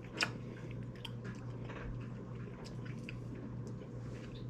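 A person chewing a mouthful of sauced fried rice close to the microphone, with small wet mouth clicks and one sharper click just after the start. A steady low hum runs underneath.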